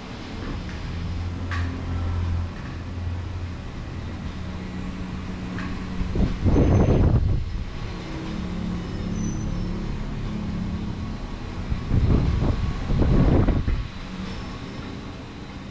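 Power drill running in two short bursts of a second or two each, the second broken by a brief pause, as a wooden bike rack is fixed to the wall, with a low steady hum between the bursts.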